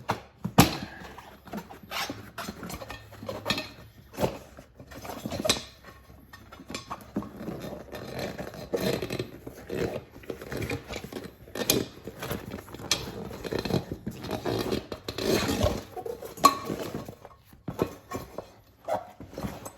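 An old tire and inner tube being worked off an e-bike's rear wheel rim by hand: irregular clinks and knocks against the rim, with rubbing and scraping sounds between them.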